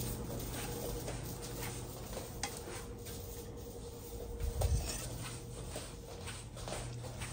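Light clinks and taps of a stainless-steel thali and the bowls on it as it is carried, with one dull thump about four and a half seconds in, over a faint steady hum.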